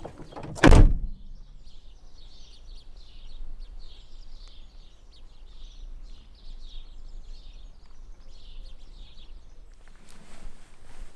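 A car door slams shut with one loud thud less than a second in. Then small birds chirp and twitter in quick repeated phrases for several seconds over a low, steady background.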